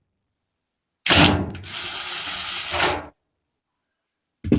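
A power drill backing out a screw from the dryer. It starts sharply about a second in and runs steadily for about two seconds before stopping, followed by a short knock near the end.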